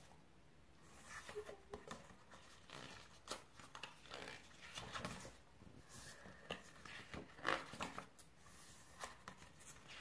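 Pages of a K-pop album's photo book being turned and handled: a quiet, irregular run of short paper rustles and flicks.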